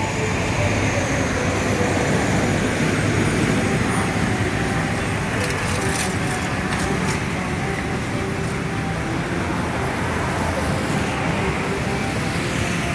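Steady road and engine noise of a car driving.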